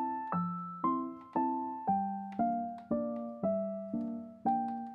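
Background music: slow piano notes and chords struck about twice a second, each left to ring and fade.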